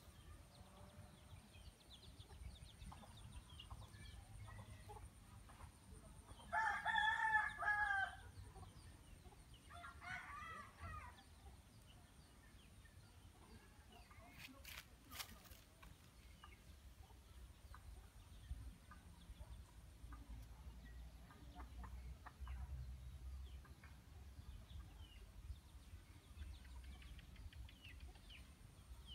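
A rooster crows once, a wavering pitched call of about a second and a half, followed a couple of seconds later by a fainter, shorter call. Otherwise only a faint background with a few scattered clicks.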